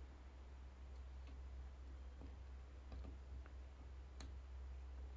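Faint clicks of clip-on test leads being handled and fitted into the socket of a TC1 multi-function component tester, a few scattered clicks with the clearest about four seconds in, over a low steady hum.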